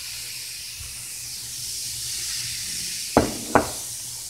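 Steady fizzing hiss of apple cider foaming as it is poured over a homemade volcano in a glass dish. Two sharp knocks about a third of a second apart come about three seconds in.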